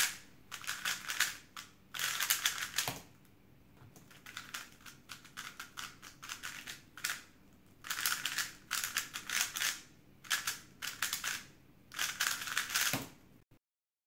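Plastic 3x3 speedcube being turned fast in a speedsolve: rapid clicking and clacking of the layers in bursts of turns, with short pauses between them.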